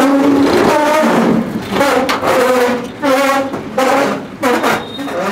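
Background music: a pitched melody in short phrases that starts abruptly.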